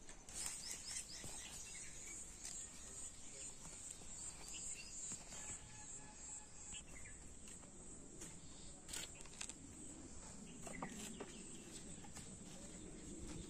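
Rural outdoor ambience: birds chirping over a steady high insect drone, with a few light knocks as dry firewood is picked up and dropped into a plastic basin in the later part.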